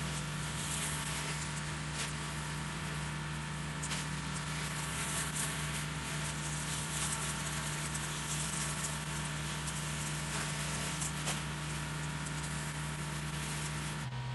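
Gas pressure washer running, its engine humming steadily under a continuous hiss of high-pressure water spraying on concrete. The engine note dips briefly near the end.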